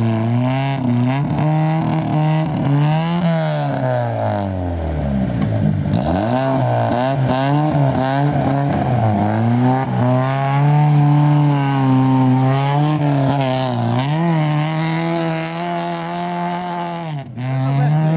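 Lada rally car's engine revving hard, its pitch swinging up and down repeatedly while the rear wheels spin in loose dirt, then held at high revs. Near the end the revs drop sharply and climb again.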